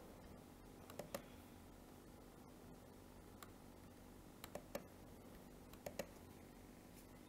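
Computer mouse clicking: a handful of sharp clicks in twos and threes, about a second in, again around four and a half seconds, and about six seconds in, over a faint steady hum.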